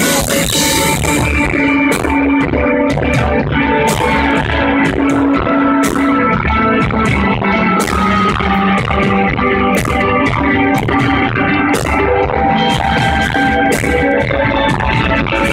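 Live amplified rock band playing a loud passage: drum hits over held chords and guitar, with little or no singing. Recorded on a phone in the crowd, the audio rough.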